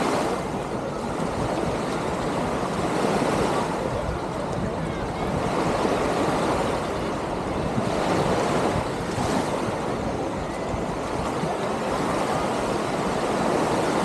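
Small waves lapping and washing onto a sandy shore, their noise swelling and fading every few seconds.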